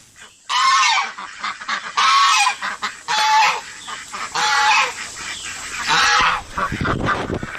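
Goose honking: five loud, harsh calls about a second apart.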